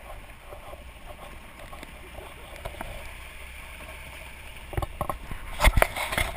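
Motorcycle riding on a gravel road: a steady low engine hum under wind and road noise, with a run of sharp knocks and rattles near the end.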